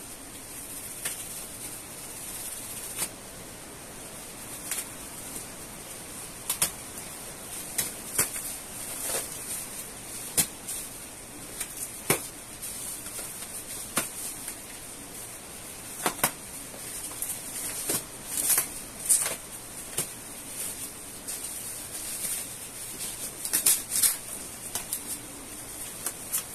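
Plastic stretch wrap and bubble wrap crinkling and tearing as a box cutter slices through them on a cardboard parcel, with irregular sharp crackles, several louder ones in the second half.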